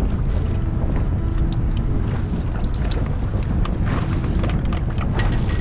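Steady wind buffeting the microphone over choppy water around a small boat, with a few faint clicks.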